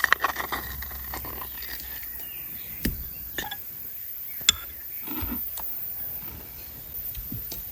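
Quiet outdoor ambience with a few sharp clicks or knocks: one about three seconds in, another about a second and a half later.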